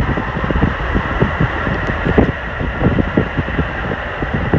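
Wind buffeting a phone's microphone at an open car window while the car drives along, in irregular low gusts over a steady rush of road and engine noise.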